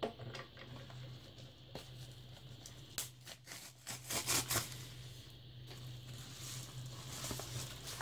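Padded paper mailer envelope being pulled open by hand, the paper crinkling and tearing. The handling is loudest between about three and four and a half seconds in.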